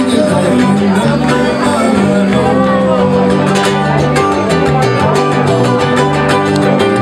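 A small live band playing a Hawaiian song: acoustic and electric guitars, bass guitar and ukulele, with the players singing into microphones. The guitar strumming comes forward about halfway through.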